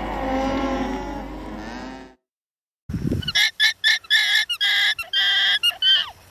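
Alpacas calling: overlapping wavering tones for the first two seconds, then a short silence, then a quick series of about ten short, high-pitched honking calls, the last one sliding down in pitch.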